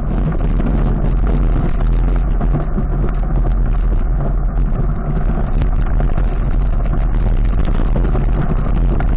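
Steady, loud rumbling wind and road noise on the microphone of an action camera on the move, dull-toned with no sharp events.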